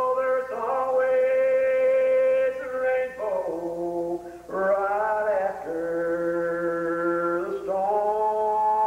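A man singing a slow gospel hymn unaccompanied, drawing out each syllable into long held notes with pitch slides between them.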